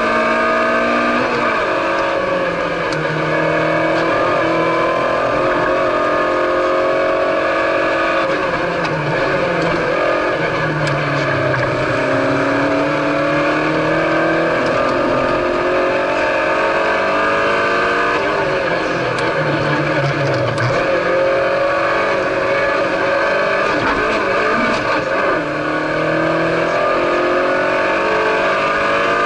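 Citroën C2 rally car's engine heard from inside the cabin, driven hard on a special stage. The pitch climbs steeply and drops back again and again as the driver runs up through the gears and lifts off for corners, over steady road and cabin noise.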